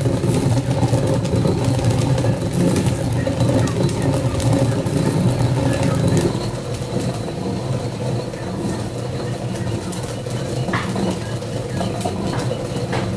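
A small engine running steadily, a low droning hum that drops a little in level about six seconds in.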